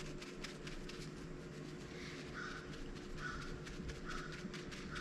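A bird calling in a series of short, evenly spaced calls, about one a second, starting a couple of seconds in, over faint clicking and a steady low hum.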